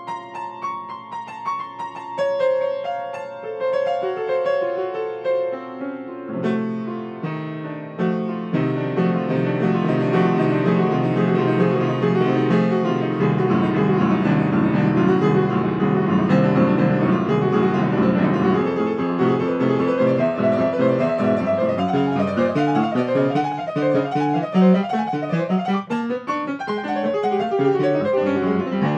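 Solo grand piano, freely improvised: a light, sparse passage that thickens about eight seconds in into loud, dense chords with deep bass notes, then quick rippling runs toward the end.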